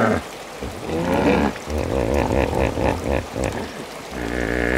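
Hippopotamus calls: deep, wavering grunts, with a run of quick pulsed honks, about five a second, in the middle.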